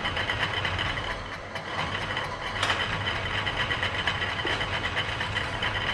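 Antique Selig Sonnenthal metal lathe running on a replacement half-horsepower electric motor, its tool cutting a steel offcut. The sound is a steady mechanical hum with high whining tones and a fine rapid chatter, a brief dip about a second and a half in, and a sharp tick near the middle.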